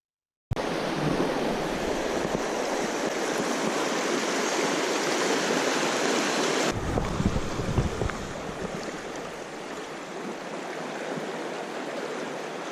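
River rapids rushing steadily over rocks, starting abruptly; about halfway through it gives way to a quieter, softer flow of wide, fast-running river water.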